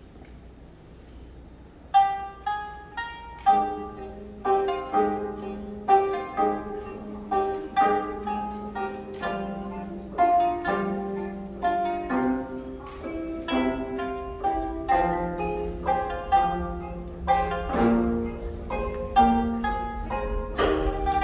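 A Korean traditional string trio of gayageum, geomungo and pipa plays a melody of plucked notes, starting about two seconds in, with lower ringing notes underneath.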